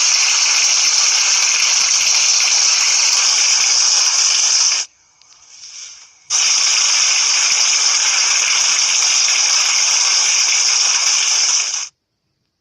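Compressed air from a pneumatic blowgun blasting through a soda-bottle airsoft gun as it is test-fired, driving pellets out through a brake-line barrel. Two long, steady hissing bursts of about five seconds each, with a short pause between, each cut off suddenly.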